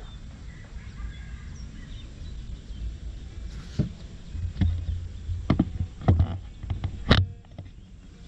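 Low wind rumble with faint bird chirps, then a string of about seven knocks and thumps from gear and movement in a small boat, the loudest about seven seconds in.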